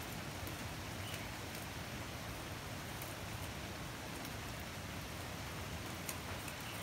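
Steady rain falling on dense leafy vegetation: an even hiss, with a few sharper drip ticks near the end.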